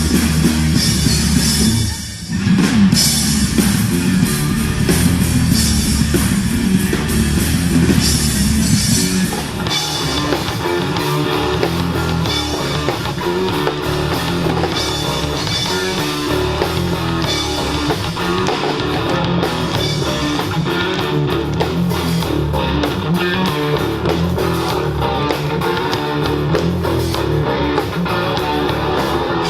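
Live rock band of electric guitar, bass and drum kit playing a medley. About two seconds in there is a brief break, and around ten seconds in the dense, cymbal-heavy section gives way to a lighter guitar-led passage.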